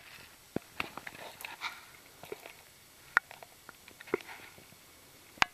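Handling noise: a scatter of light clicks and taps at irregular intervals, with a sharper click near the end.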